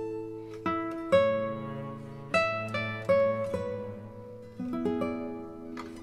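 Background music on a plucked acoustic string instrument: single notes picked one after another, each left to ring and fade.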